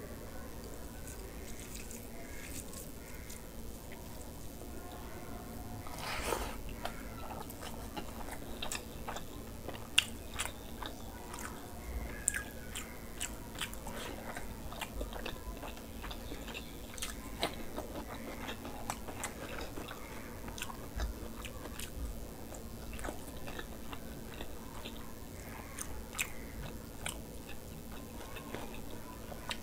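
A person chewing and eating rice and curry by hand, close to the microphone: wet smacking mouth sounds with many short sharp clicks throughout.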